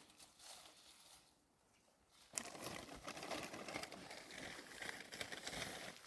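Rustling, crinkling noise with many small crackles, starting after a near-quiet first two seconds and then continuing steadily.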